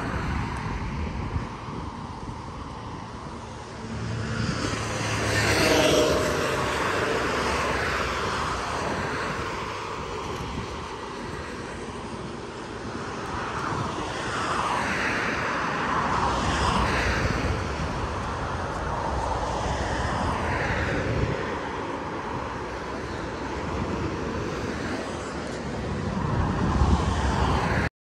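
Road traffic passing on a seafront road: vehicles swell up and fade away several times, around five, fifteen, twenty and twenty-seven seconds in, some with a falling pitch as they go by, over a steady rumbling haze.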